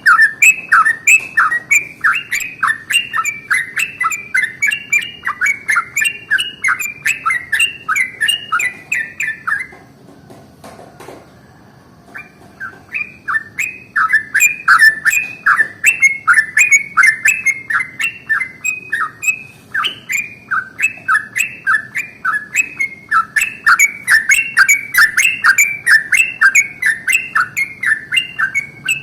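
Yellow-vented bulbul (trucukan) singing a long, fast rolling chatter of sharp repeated notes, about three a second. The song breaks off for a few seconds about ten seconds in, then picks up again.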